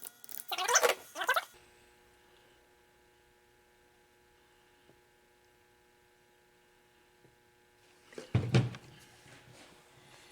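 Brief handling noises at the start and a dull thunk a little over eight seconds in, over a faint steady electrical hum, as a compressor valve is handled and filled with diesel fuel on a workbench for a leak test.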